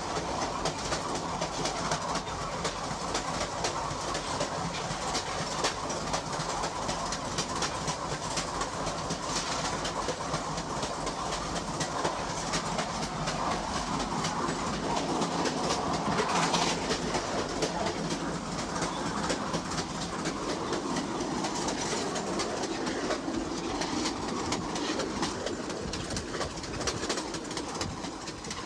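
A dense, steady clatter of fine clicks over a rumbling noise, swelling to a peak a little past the middle and then easing off.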